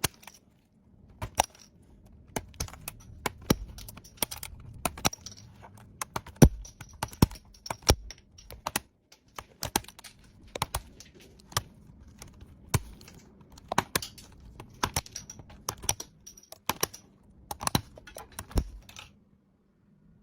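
Laptop keyboard keys clicking in an irregular series of sharp clicks, one or two a second, stopping shortly before the end.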